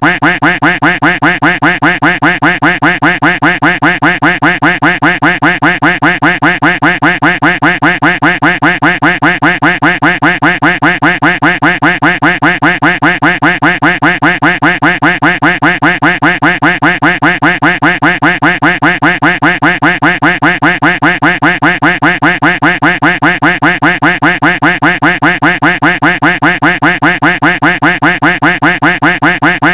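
Duck quack sound effect looped over and over in a fast, even rhythm, about three quacks a second.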